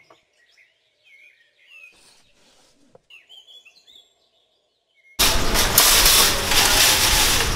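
Faint birds chirping, short chirps that rise and fall in pitch, for about five seconds. Then it cuts suddenly to loud, steady outdoor noise.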